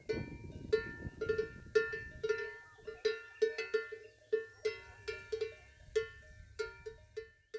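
Bell on a grazing cow clanking irregularly, about three ringing strikes a second, as the cow moves its head while feeding.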